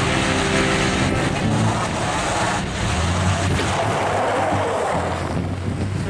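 Truck engines pulling hard under load as a pickup tows the stuck snowplow truck out of deep snow on a tow line, with tyres churning in the snow and some wind on the microphone.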